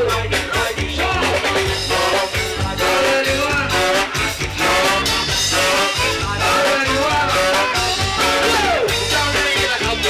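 Live band with a horn section playing over a steady beat, a man singing.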